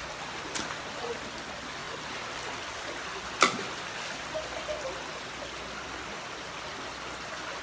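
Fast-flowing creek rushing over rocks, a steady hiss of moving water. A sharp knock comes about three and a half seconds in, and a fainter click near the start.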